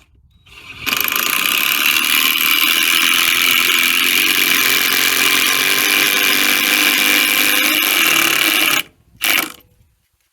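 Power tool running steadily under load for about eight seconds and cutting off, then one short burst a moment later.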